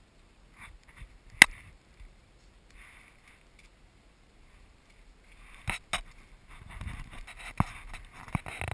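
One loud, sharp gunshot about a second and a half in, then several fainter sharp clicks and some rustling over the last few seconds.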